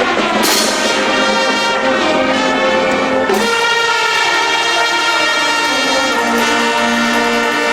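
Marching band brass section playing sustained, loud chords, with a bright crash about half a second in and a change of chord a little past three seconds.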